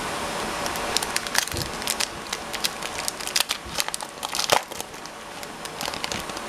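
Trading-card booster pack wrapper being crinkled and rustled in the hands: a run of sharp crackles, the loudest about four and a half seconds in.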